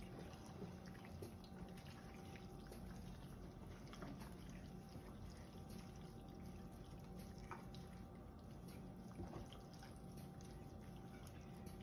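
Faint wet squishing and small slaps of bare hands rubbing seasoning into raw chicken pieces in a plastic tub, over a steady faint hum.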